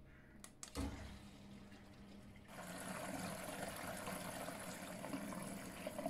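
Miele washing machine starting a wash: a few clicks and a thump in the first second, then water rushing into the drum through the detergent drawer from about two and a half seconds in.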